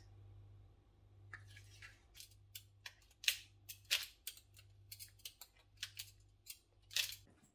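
Block of hard cheese being shaved with a small blade onto a plate of pasta: a run of quick, sharp scraping strokes, about four a second, starting about a second in.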